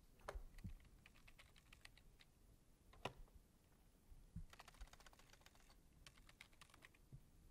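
Faint laptop keyboard typing: two runs of quick keystrokes, with a few single louder key taps.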